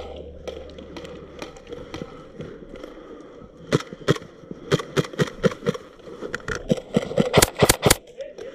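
Airsoft guns firing: scattered sharp cracks that grow more frequent through the middle, then a quick string of about four much louder, close shots near the end.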